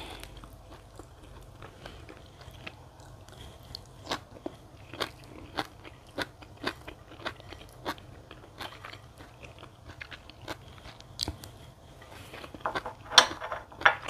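A person chewing a mouthful of rice and blanched sea kale leaf close to a clip-on microphone, with short wet clicks and smacks about twice a second and a louder cluster of smacks near the end.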